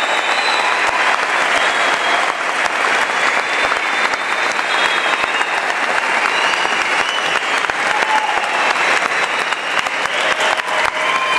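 Audience applauding: dense, steady clapping from a full hall at the end of a talk.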